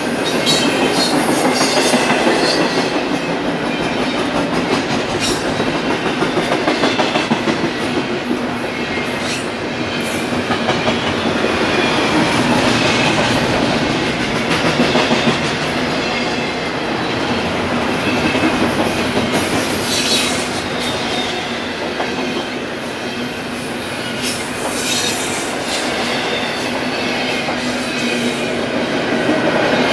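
BNSF freight train's cars rolling past at close range, wheels clicking over the rail joints, with scattered sharp clanks and faint wheel squeal.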